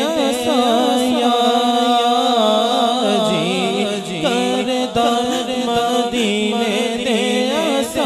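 A male naat reciter singing a Punjabi naat about Madina into a microphone, holding long notes that waver and glide in ornamented runs, over a steady low drone.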